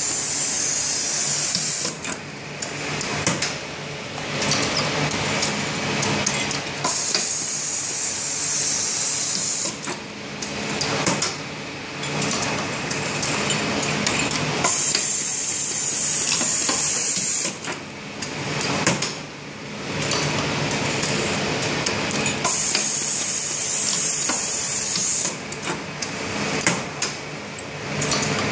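Automated pneumatic assembly machine feeding metal bellows discs along its track: steady mechanical running with many small clicks. A hiss of air lasting about two and a half seconds comes four times, about every seven and a half seconds.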